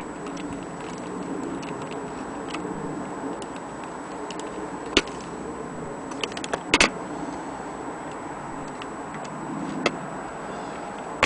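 Small clicks and knocks from handling a vintage Metamec electric clock as fingers turn the brass setting knobs on its back. A sharper click comes about five seconds in, a quick cluster of them shortly after, and another near the end, over a steady background noise.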